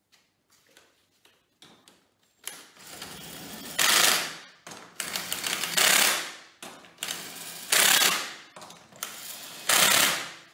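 Impact wrench tightening an ATV wheel's lug nuts onto a wheel spacer: four bursts about two seconds apart, each running up and ending in a loud rattling hammer, after a few faint clicks at the start.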